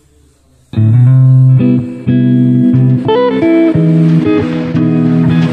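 Background music led by a plucked guitar, cutting in abruptly just under a second in after a near-silent start.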